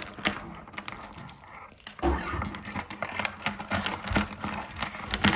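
Rapid, irregular clicking and clacking of articulated 3D-printed plastic toys being knocked together, getting busier from about two seconds in.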